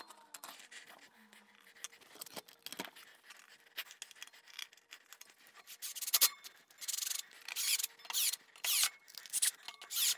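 Cordless drill driver driving screws into pre-drilled holes in an OSB plate, fastening it to a wheeled base, in a run of short bursts from about six seconds in. Before that, faint knocks and scraping as the board is shifted into place.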